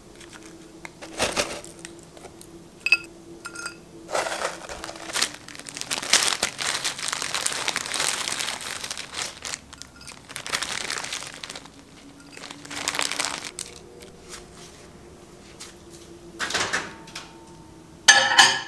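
Plastic bags crinkling and rustling in several bursts, with small clicks of chopsticks and containers, as frozen side dishes are handled. Near the end comes a short, louder scrape of a wooden spatula in a frying pan.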